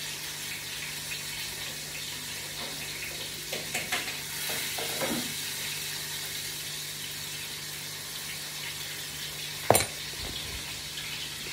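Fish frying in hot oil in a pan, a steady sizzle, with a few light clatters about four seconds in and one sharp knock near the end.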